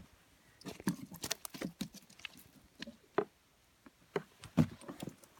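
Hooked rainbow trout splashing and thrashing as it is scooped into a wooden landing net and lifted out: a string of irregular splashes and knocks, the loudest a little before the end.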